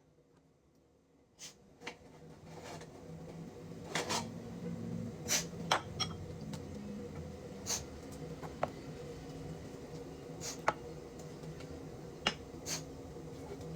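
Scattered light clinks and taps of kitchen utensils against dishes and pans over a steady low hum, beginning after about a second and a half of near silence.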